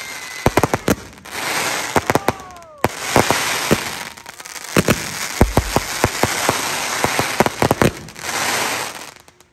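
A 50-shot fireworks cake, Dragon Fireworks' Arctic Thunder, firing in volleys: clusters of sharp bangs as shots launch and burst, over a dense crackling hiss, with a few brief whistling tones.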